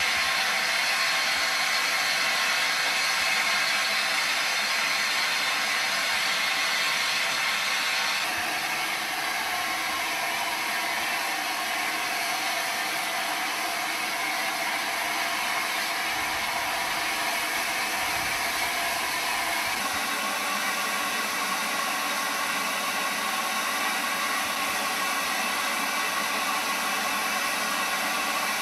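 LNER A4 Pacific steam locomotive Sir Nigel Gresley standing with steam escaping, a loud steady hiss. Its tone shifts about eight seconds in and again about twenty seconds in.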